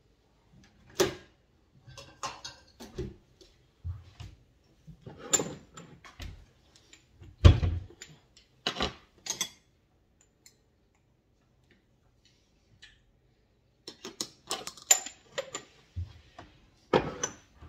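Kitchen handling noises: scattered clicks and knocks of things being picked up and set down, the loudest knock about seven seconds in. A few seconds of near quiet follow, then another quick run of clicks and knocks.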